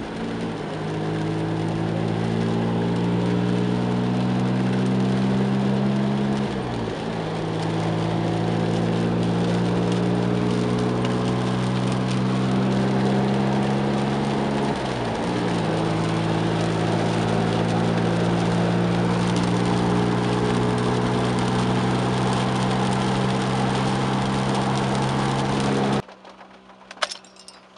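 Turbocharged Mazda V6 in a 1994 MX-6, heard from inside the cabin while driving, running steadily with rain on the car. Its pitch dips and climbs back twice, about a quarter of the way in and again about halfway, like gear changes. Near the end the engine sound cuts off, leaving faint quiet sound.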